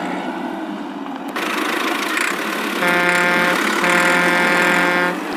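Cartoon vehicle engine sound effect, running steadily and growing louder a little over a second in. Two long steady pitched tones sound over it about three seconds in, one after the other.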